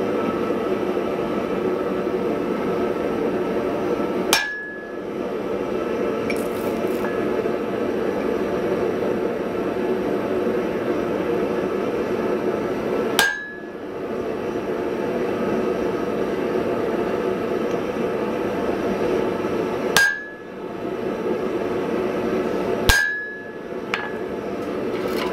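Four heavy hammer blows on a hot punch being driven into a glowing wrought iron hammer blank, each giving a short metallic ring. The blows are several seconds apart, over a steady roaring hiss.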